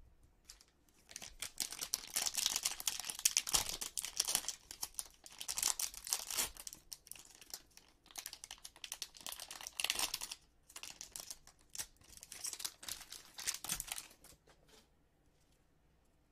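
Plastic wrapper of a baseball card pack being torn open and crinkled by hand, a dense crackling that starts about a second in and dies away a couple of seconds before the end.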